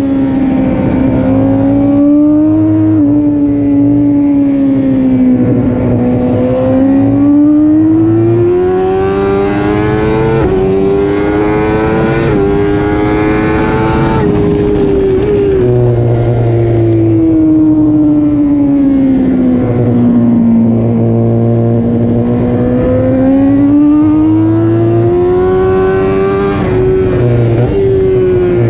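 Onboard sound of a BMW S1000RR's inline-four racing engine at high revs under wind rush: the pitch climbs for several seconds with small steps as the rider shifts up, falls away for about six seconds as he backs off and shifts down, then climbs again near the end.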